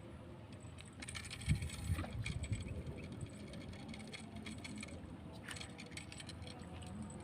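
Faint rustling, clicking and light thumping of close handling noise, busiest from about one to three seconds in, with a few more clicks later over low steady background noise.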